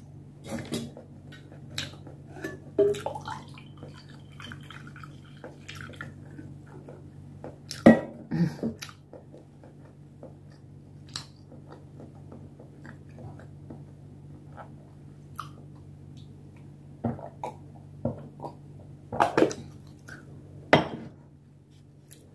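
Close mouth sounds of someone eating sushi: chewing, swallowing and lip smacks, heard as scattered short clicks and smacks over a steady low hum. The loudest click comes about eight seconds in, and a cluster of them comes near the end.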